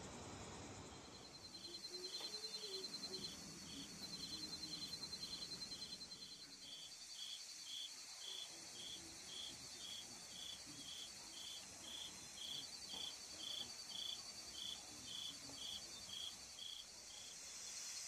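Insects chirping: a fast, high trill that runs for several seconds, stops, and comes back, under a steady chirp repeated about twice a second.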